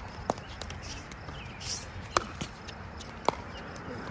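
Pickleball rally: sharp pops of paddles hitting the plastic ball, three loud hits (one just after the start, then about two and three seconds in), with fainter ball bounces on the hard court between them.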